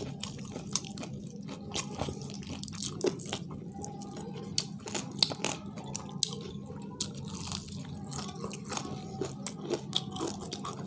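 Two people biting and chewing fried chicken fast, with many short crunches and smacks scattered throughout, over a steady low hum.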